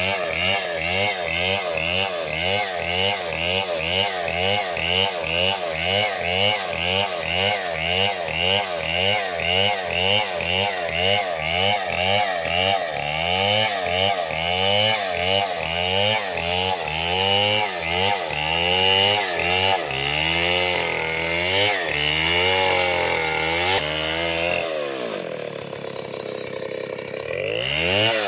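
Chainsaw engine running, its pitch rising and falling about twice a second. Near the end it drops toward idle for a couple of seconds, then revs back up.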